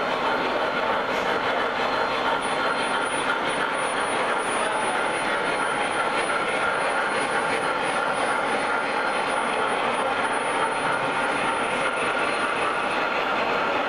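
Lionel O-gauge model freight train running along three-rail track: a steady, even rolling rumble of wheels on the rails.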